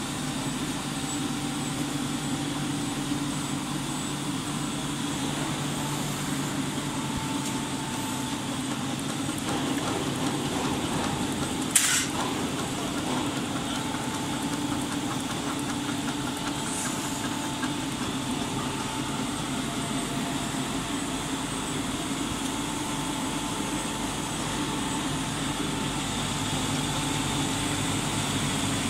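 Six-colour central-impression flexo printing machine for napkins running, a steady mechanical hum with several constant whining tones over it. About twelve seconds in there is one brief, sharp, high-pitched sound.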